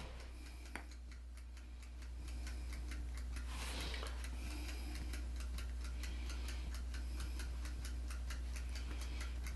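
Mechanical IKEA kitchen timer ticking quickly and evenly, a little louder from about two seconds in, over a low steady hum.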